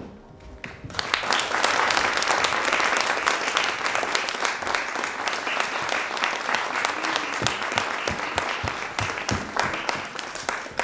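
A single thud, then audience applause breaks out about a second in and keeps going steadily as a dense clapping, with a few voices calling out over it later on.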